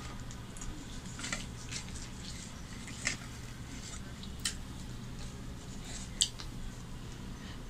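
Eating by hand: paratha torn apart and fingers working the food on the plates, with a few soft smacks and sharp clicks, the sharpest about six seconds in, over a steady low hum.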